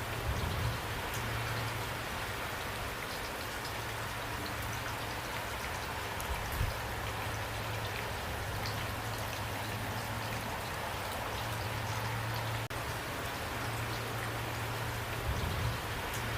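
Steady rain falling, an even hiss with scattered drop ticks. A low hum comes and goes underneath, and a few brief soft low thumps stand out, about half a second in, near the middle and near the end.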